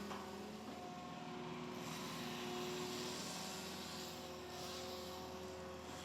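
Engine of a tree-felling machine running steadily as a droning hum. Its pitch shifts slightly just under a second in.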